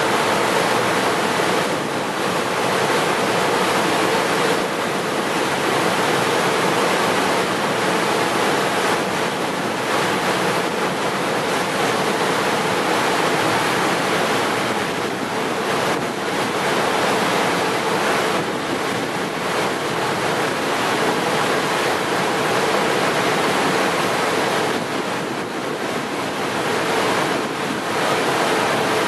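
Boeing Jetfoil hydrofoil ferry running foilborne at speed: a steady rushing noise from its gas-turbine waterjet propulsion and the spray thrown off behind it.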